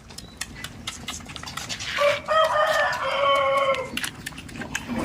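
A rooster crowing once, about two seconds long, starting about two seconds in, with scattered short clicks around it.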